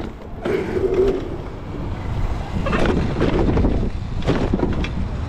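Wind buffeting the microphone with a steady low rumble, over rattles and knocks from a Razor RSF electric mini bike rolling over rough concrete steps, in clusters about three seconds in and again a second later.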